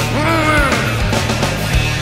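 Grunge rock band playing loud: electric guitars, bass and drums, with a male lead voice holding a sung note that slides down in pitch in the first second.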